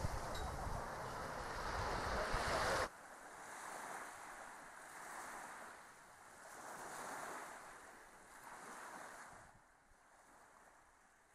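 Wind buffeting the microphone with a loud, deep rushing that cuts off abruptly about three seconds in, followed by fainter wind that swells and fades every second or two.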